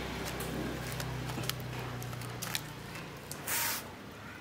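Aluminium foil crinkling and light clicks from the wire grill as a foil-wrapped parcel is set down on it over a charcoal clay stove, with a short rustle about three and a half seconds in. A low steady hum in the background fades away after about three seconds.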